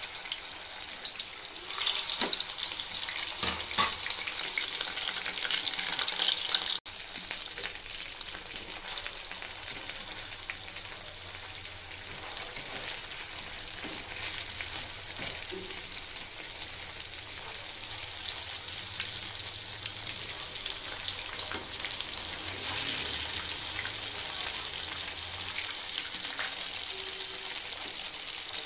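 Paneer kofta balls deep-frying in hot oil: a steady sizzle full of small crackles, with light clicks as a wire skimmer turns them in the pan. The sizzle is louder in the first seven seconds and drops out for a moment just before it settles.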